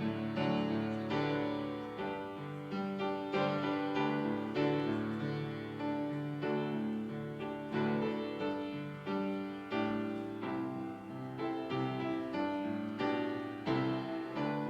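Solo piano playing a slow piece of offertory music, with chords struck and left to ring.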